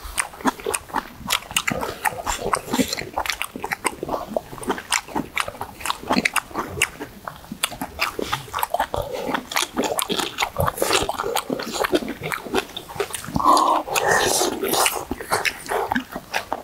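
Close-miked eating: people chewing squid and radish soup with rice, with many short clicks of spoons and chopsticks against stainless steel bowls.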